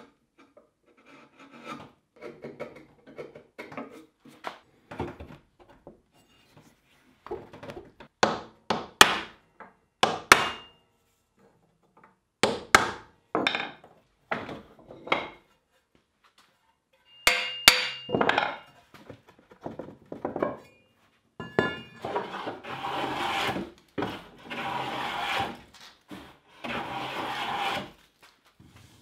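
Hand tools shaping a wooden hoe handle: a chisel paring the end of the blank with short scraping strokes, then a series of sharp knife cuts, and near the end about three long hand-plane strokes along the handle.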